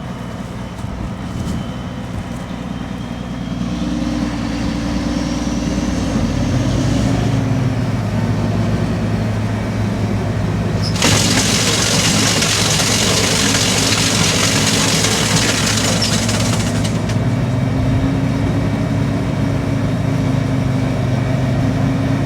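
Combine harvester's diesel engine running, then revving up a few seconds in and holding at a higher speed as the machine is run up. About halfway, a loud steady hiss starts and stops abruptly some six seconds later.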